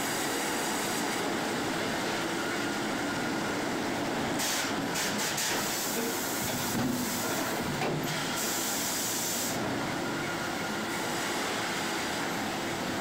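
Sawmill machinery running: a steady mechanical rumble and clatter, with two stretches of added hiss, one about a third of the way in and one past the middle.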